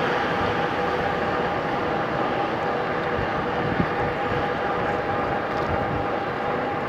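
RadRover electric fat-tire bike under way: wind and tyre rush with a steady whine from the drive.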